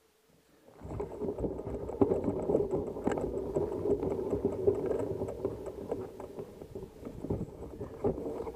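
A mountain bike rolls off over a rough dirt and gravel track, starting about a second in. The tyres rumble and the frame and parts rattle and clatter with many small knocks, over a faint, fast, regular ticking.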